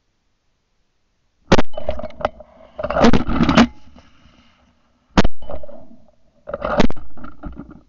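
Shotgun shots at flying ducks. The first comes about a second and a half in, a quick cluster of shots follows around three seconds, then single shots near five and near seven seconds.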